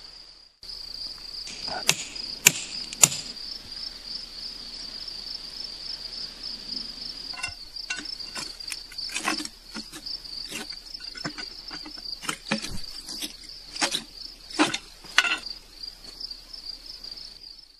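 A hammer striking steel plugs and feathers (wedges) set in drilled holes in a granite slab: three sharp, loud ringing strikes about two to three seconds in, then lighter taps and knocks from a hammer and chisel working the split. Insects chirr steadily throughout in a high, pulsing drone.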